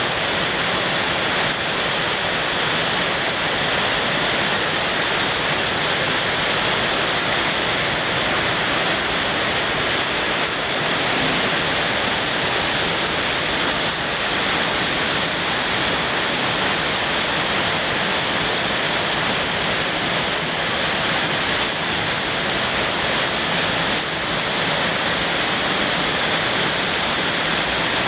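Rain falling steadily, an even hiss that holds the same loudness throughout.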